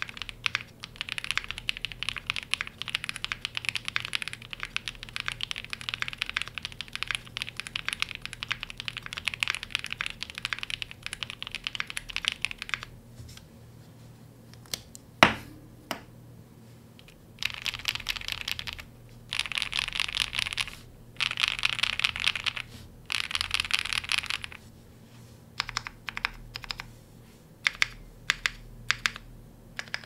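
Typing on a Zoom65 Essential Edition R2 gasket-mount mechanical keyboard with a polycarbonate plate, lubed Smoothie linear switches and GMK keycaps: fast continuous typing for about the first thirteen seconds. Then comes a pause broken by one sharp loud knock about fifteen seconds in. Short bursts of rapid keystrokes follow, then scattered single presses near the end.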